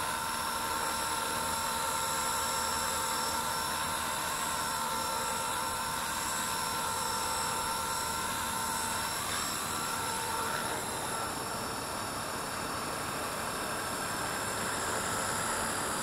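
Blade 230S V2 electric RC helicopter in flight, its brushless motor and rotors making a steady whine as it comes in to land; about ten seconds in, the whine's pitch shifts.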